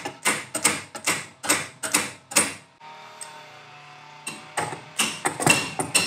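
A wrench knocking repeatedly on the metal side of a furnace gas valve, light strikes about three a second with a pause of over a second in the middle. The later strikes ring with a thin metallic tone, and a faint steady hum fills the pause. The valve is being tapped while energized to free a valve stuck in the closed position.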